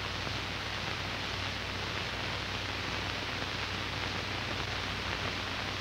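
Steady hiss with a low hum underneath: the background noise of an old film soundtrack, with no voice or music.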